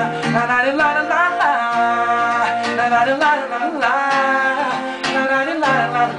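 Two male voices singing long held notes over a strummed acoustic guitar.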